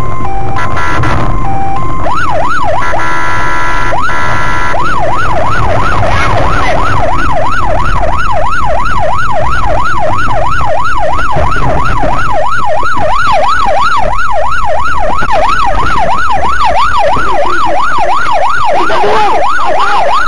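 Police car siren sounding over engine and road rumble. It changes pattern in the first few seconds, then settles into a fast yelp that sweeps up and down about two to three times a second.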